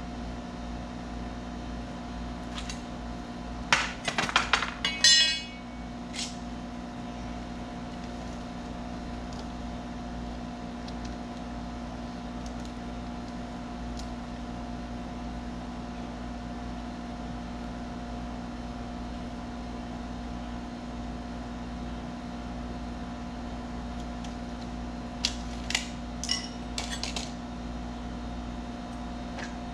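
Light clinks and clatter from tools and door threshold pieces being handled and set down: a burst of clicks and a short rattle about four seconds in, and a few more clinks near the end. A steady mechanical hum underlies it throughout.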